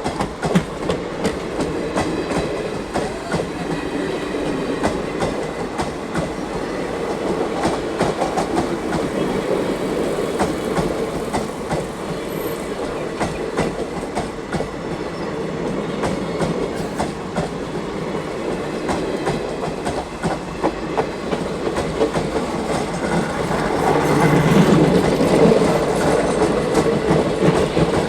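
Coaches of the Azad Hind Express, an Indian Railways express train, running past at speed, their wheels clattering over rail joints in a continuous stream of clicks. The sound grows louder near the end.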